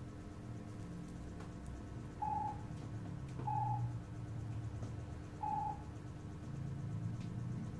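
Three short electronic beeps from a wireless doorbell receiver, all at the same medium pitch. The first two are about a second apart, and the third follows about two seconds later, over a low steady hum.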